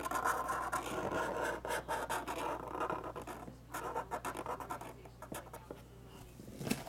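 Trading card boxes and their wrapping being handled, with scratching and rustling of cardboard and plastic that is densest for the first three seconds and comes again about four seconds in. A single sharp click near the end.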